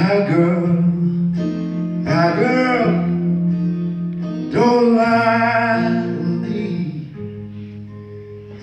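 Live acoustic blues band playing: guitar and bass under a loud lead line in long, bending phrases, three in a row, that fall away about seven seconds in.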